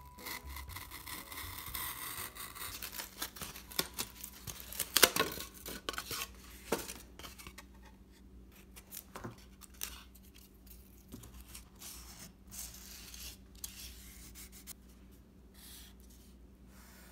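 A craft knife blade scraping as it cuts through white board on a cutting mat, then a burst of sharp knocks and rustles as the cut-out piece is handled around the middle. After that come fainter, scattered taps and scratches of a marker writing on the board.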